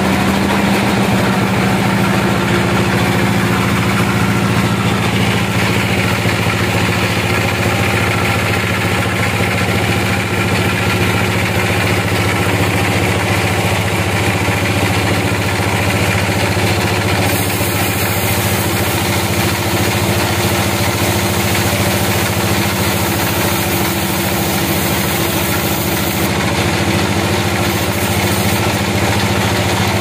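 Band sawmill running steadily with a constant low hum, its blade sawing lengthwise through a large log.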